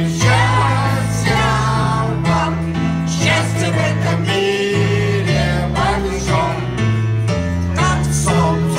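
Choir singing a song with instrumental accompaniment and a bass line that steps from note to note.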